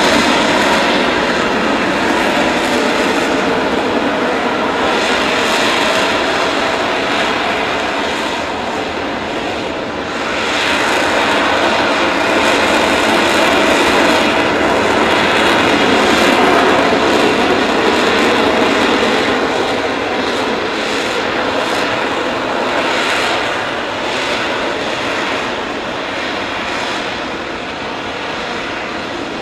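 Harrier jump jet hovering, its jet engine giving a loud, steady noise that swells and eases a little, with a dip about ten seconds in.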